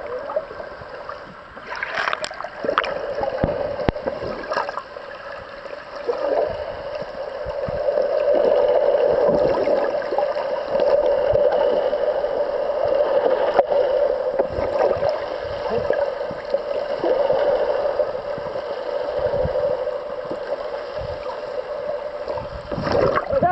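Water rushing and gurgling, heard from a camera held underwater, with a steady hum that is strongest through the middle.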